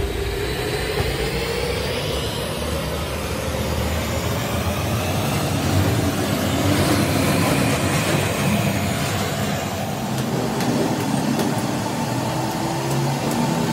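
Steady roar of an LPG gas burner firing under a steel pot of scrap aluminium being melted down. In the last few seconds, a series of short, sharp metal taps.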